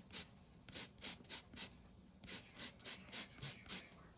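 A lemon rubbed back and forth on a microplane grater, zesting: short, faint rasping strokes, about three or four a second, with a brief pause about two seconds in.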